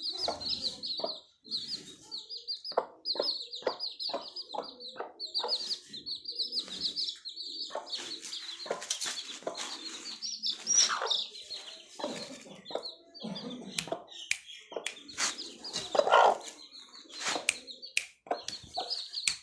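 Newly hatched Thai Aseel chicks peeping in fast, high runs of chirps, with the hen clucking lower among them and a few louder calls partway through.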